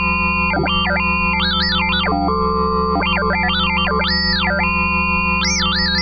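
Dexed FM synthesizer (a Yamaha DX7 emulation) holding a steady drone while a higher voice glides up and down in pitch in repeated arcs.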